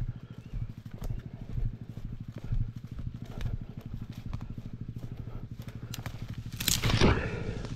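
Dirt bike engine idling with a fast, even putter, with a few light clicks and a brief louder rush of noise near the end.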